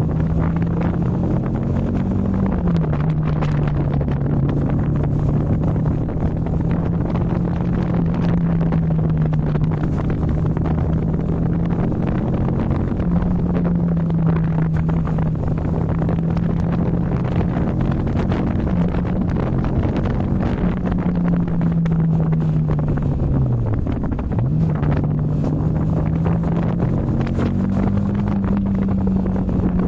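Yamaha MT-15's 155 cc single-cylinder engine under way, its pitch stepping up and down with gear changes and throttle, dipping sharply and recovering about 24 seconds in. Wind buffets the microphone.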